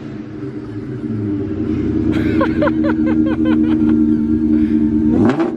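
Built, supercharged Ford Mustang Cobra V8 idling loudly with a lumpy, steady note, then revving up near the end. A quick run of short chirps sounds briefly about two seconds in.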